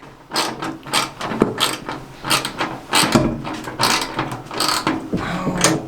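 Socket ratchet wrench clicking in quick, uneven runs of strokes as a nut is tightened on a bolt.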